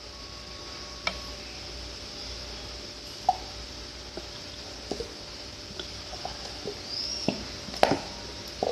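Clear PVA glue being squeezed and poured from a plastic bottle into a container, with scattered soft clicks and taps from the bottle and container. The sharpest pair of taps comes near the end.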